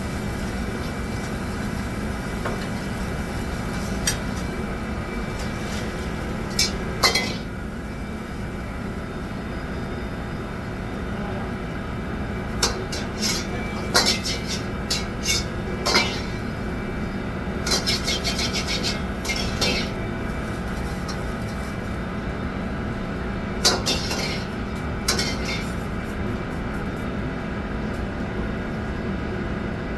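Kitchen clatter: metal utensils and dishes clinking and knocking now and then, in small clusters, over a steady background hum.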